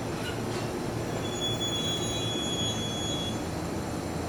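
JR East E531 series electric train rolling slowly to a stop at a station platform, with a low rumble throughout. A steady high squeal rises as it brakes, lasting about two seconds in the middle.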